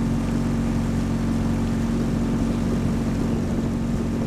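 Motorboat engine running steadily at an even speed, a constant droning hum with water and wind noise around it.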